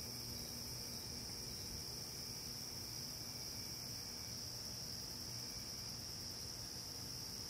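Steady chorus of night insects: one continuous high-pitched trill that does not let up.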